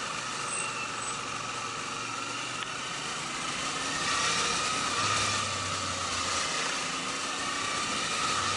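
Steady wind and road noise from riding a motorcycle, with the engine running underneath.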